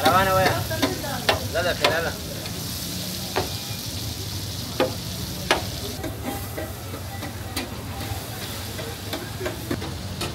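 Liver frying on a large flat tawa: steady sizzling, with a metal spatula scraping and squeaking across the hot plate in the first two seconds, then a few sharp taps and clicks of metal.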